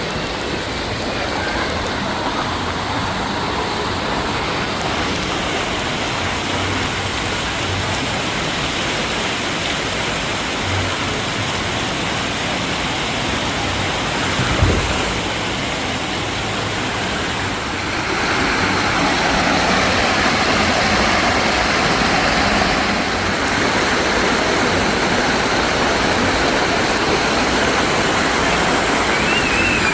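Steady rush of running and splashing water, with a single thump about halfway through. The rush grows louder near the middle.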